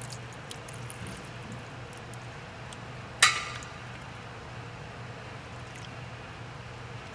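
Used engine oil pouring in a steady stream from the open drain hole of a Toyota Corolla XRS oil pan, just after the drain plug is pulled. A single sharp clink rings out about three seconds in.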